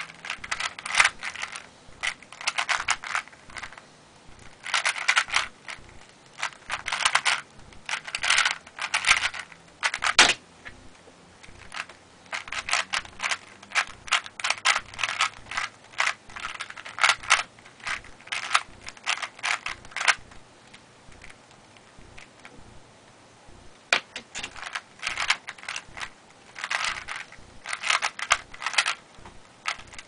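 A 3x3 Rubik's cube being turned rapidly, its plastic layers clicking and clacking in quick bursts. About a third of the way in, a single sharp tap on a keyboard's spacebar stops the solve timer, and the cube is turned again for several seconds. After a quieter stretch, another tap starts the next timed solve near the end, and the fast turning resumes.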